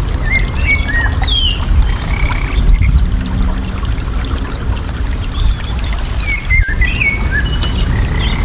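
Steady running water, with small birds chirping in short whistled notes over it, in clusters about a second in and again near six to seven seconds in.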